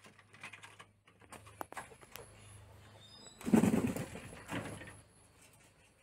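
Pigeon bathing in a shallow puddle: small splashes and drips, then a louder burst of splashing and wing flutter about three and a half seconds in, with a smaller splash just after.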